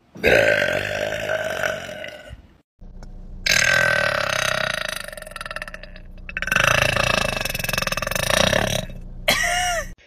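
A woman burping loudly: three long, drawn-out burps one after another, each lasting two to three seconds, then a brief shorter sound near the end.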